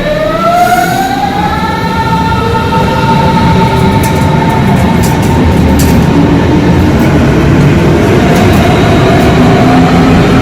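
Electric train accelerating: its traction motors whine in several tones that rise in pitch for the first couple of seconds and then hold steady, over loud running noise. A fainter whine rises again near the end.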